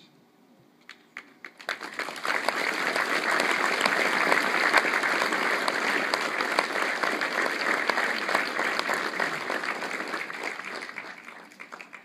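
A large audience applauding. A few scattered claps come about a second in, swell within a couple of seconds into full applause, and die away near the end.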